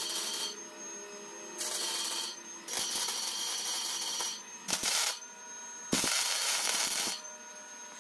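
MIG welder tack-welding joints on thin-wall steel tubing: about five short bursts of arc hiss, each lasting half a second to a second and a half, with brief pauses between.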